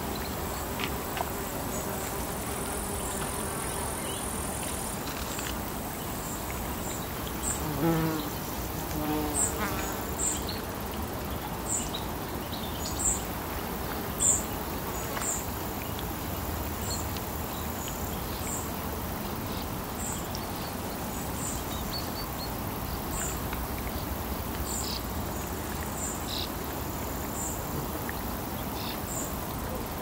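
A buzzing insect flying close by, its drone rising and falling in pitch about eight to ten seconds in, over a steady outdoor hiss. Short, very high chirps repeat roughly once a second.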